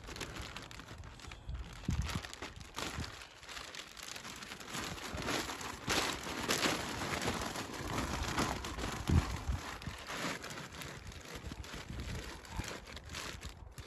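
Irregular rustling and crinkling handling noise with scattered light knocks, busiest in the middle.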